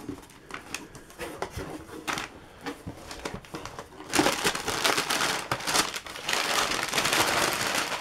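Cardboard carton flaps handled with scattered light rustles and taps, then crumpled packing paper crinkling loudly as it is pushed aside by hand, in two long stretches over the second half.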